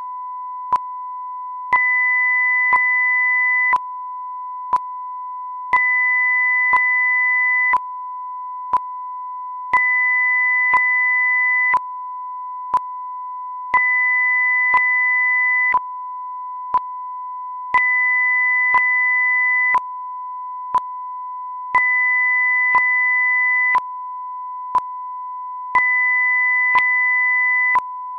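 Synthetic audio-video sync test signal: a steady test tone, with a second tone an octave higher switching on for two seconds and off for two seconds in turn, and a short sharp click once every second as a sync marker.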